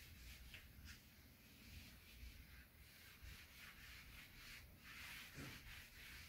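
Faint rubbing of a whiteboard eraser wiped back and forth across the board in irregular strokes.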